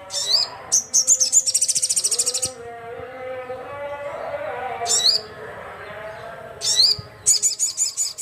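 A crimson sunbird (sogon) singing loud, high-pitched sharp notes broken by fast rattling trills: one trill about a second in, and another starting near the end.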